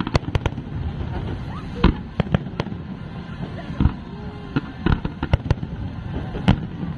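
Aerial fireworks display going off: an irregular run of sharp bangs and crackles, about a dozen loud reports over a steady low rumble of further bursts.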